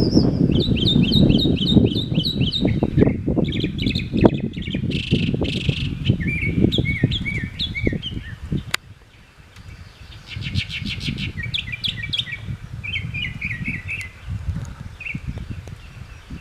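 Northern mockingbird singing: runs of repeated high, sweeping notes, each phrase repeated several times before switching to a new one. A low rumble sits under the first half, and there is a sharp click about halfway through.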